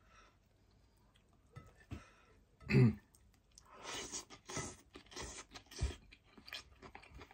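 A man chewing a mouthful of boiled cabbage with wet, smacking mouth sounds about twice a second in the second half. A short vocal noise from him near the middle is the loudest sound.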